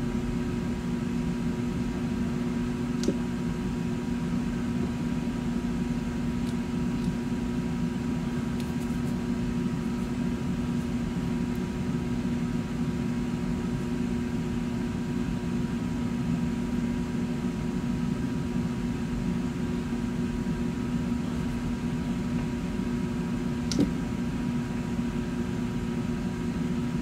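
Steady machine hum carrying a few level tones, with two faint clicks, one about three seconds in and one near the end.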